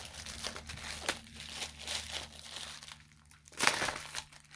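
Clear plastic packing wrap crinkling as it is unwrapped by hand, a dense run of small crackles, a short lull, then one loud rustle near the end.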